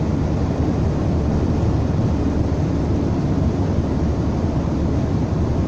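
Steady low rumble inside the cab of a Ford 915 truck on the move, with a strange noise that the driver thinks comes from the mechanical parts, not a wheel.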